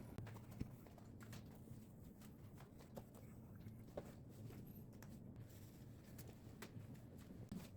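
Near silence with a low hum and faint, irregular light clicks and taps.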